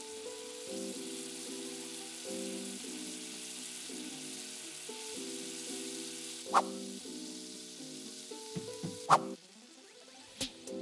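A cut onion half charring face-down on a hot glass-ceramic hob, sizzling steadily, with two sharp clicks about six and a half and nine seconds in. The sizzle cuts off about nine and a half seconds in.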